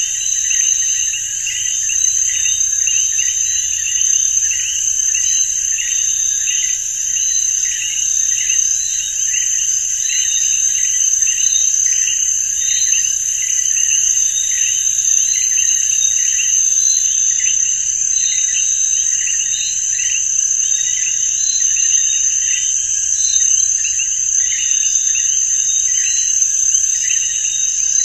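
Insects in a dry field buzzing steadily: a continuous high-pitched drone with short chirps repeating about twice a second.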